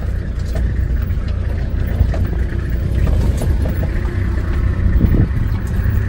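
Open-sided safari vehicle driving over rough ground: a steady, loud engine and road rumble with a few faint rattles.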